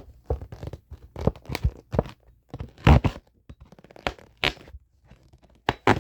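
Irregular knocks, clicks and scrapes from handling a metal survival multitool, the loudest knock about three seconds in.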